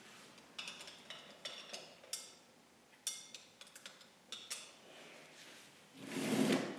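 Light clinks and scrapes of studio tools and metal paint cans being handled, about a dozen short, thin sounds over the first five seconds. A louder rustle follows a little after six seconds.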